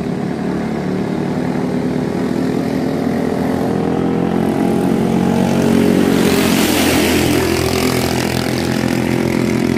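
Racing katinting longtail boat engines running flat out as two boats speed past. A rushing noise of spray swells over the engine note, loudest about six to seven seconds in.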